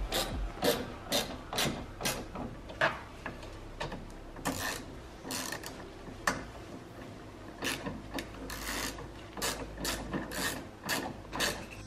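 Screwdriver working on a plastic bumper indicator light, with irregular sharp clicks and short scrapes of metal on plastic, about one or two a second.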